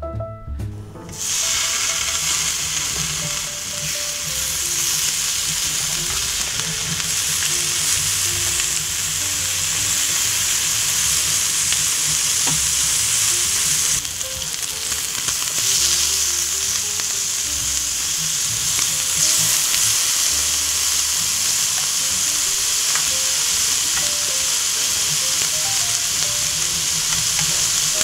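Thick pork strips and bacon pieces frying in a hot pan: a steady, loud sizzle that sets in about a second in and carries on without a break.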